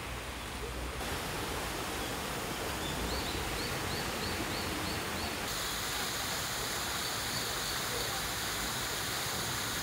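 Shallow spring-fed stream running over stones, a steady rush of water. A run of short high chirps, about three a second, sounds for a couple of seconds, and a high steady buzz joins about halfway through.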